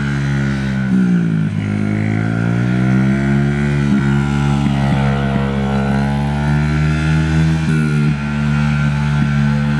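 Honda CRF50 dirt bike's small single-cylinder four-stroke engine running under a child rider. The revs drop about a second in, climb back, then rise and fall gently a couple more times as the throttle is eased and opened.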